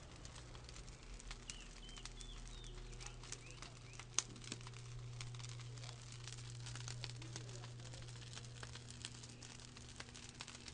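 Whole-pig charcoal rotisserie running: a steady low hum under scattered small crackles and ticks. A bird chirps a few times, briefly, about two seconds in.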